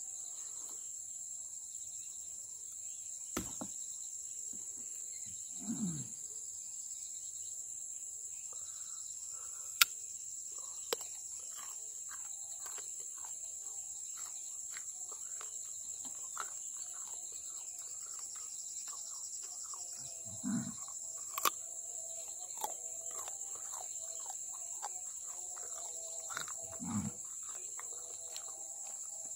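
Steady high-pitched drone of insects, crickets or cicadas, with a few sharp clicks and three short low sounds that fall in pitch.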